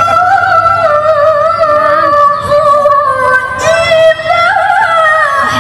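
A woman's voice reciting the Qur'an in the melodic tilawah style, amplified through a microphone. She holds long, high notes with ornamented turns, with short breaks about two and four seconds in.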